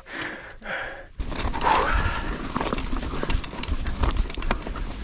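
Mountain bike riding over a rough stone-slab path: tyres and frame clattering and knocking on rocks in quick irregular knocks over a low rumble, starting about a second in.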